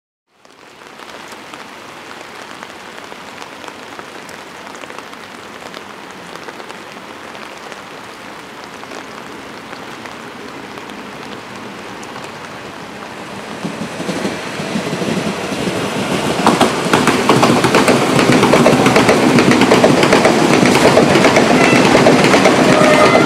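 Hyundai Rotem HRCS2 Intercity+ electric trainset approaching and passing close by, growing steadily louder from about halfway, with the clatter of its wheels over the rails. Steady rain hiss underneath.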